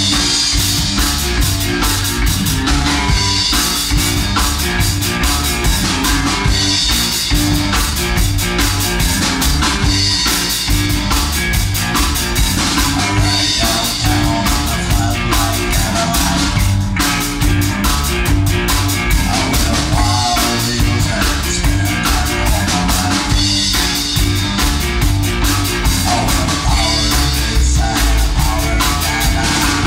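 Rockabilly band music, mostly drum kit keeping a steady driving beat, with bass drum, rimshots and guitar.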